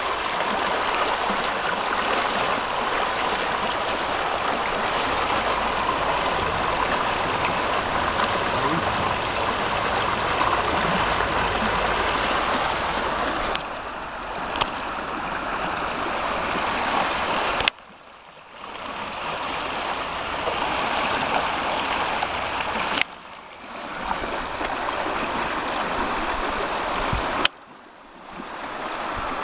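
Rushing river water: a steady hiss of flowing current. It drops away abruptly three times with a click in the second half and swells back each time.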